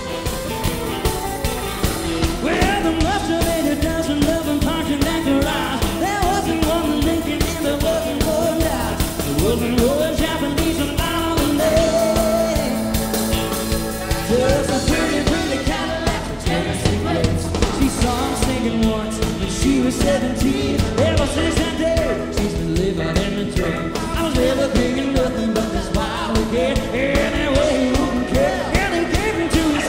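Live country band playing through a PA, with drum kit, electric guitars and singing.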